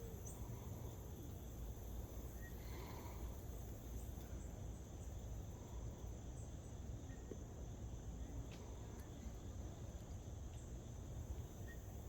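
Crickets chirring steadily with a high-pitched buzz, over a constant low rumble of outdoor background noise, with a few faint ticks.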